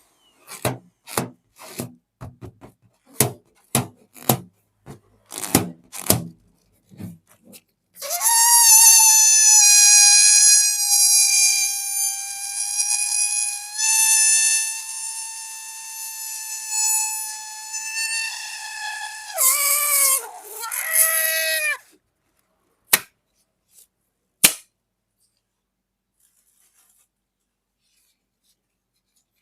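A quick run of about a dozen sharp balloon pops, then a balloon squealing for about fourteen seconds as air is let out through its stretched neck. The squeal is one steady high note that wavers and falls near the end. Two more sharp pops follow.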